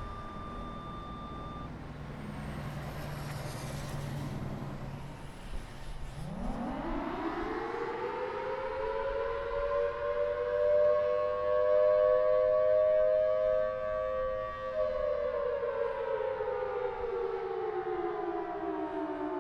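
Federal Signal Thunderbolt 1003 outdoor warning siren winding up about six seconds in, its pitch climbing quickly to a steady high tone with two close pitches. After several seconds it begins winding down, the pitch falling steadily near the end.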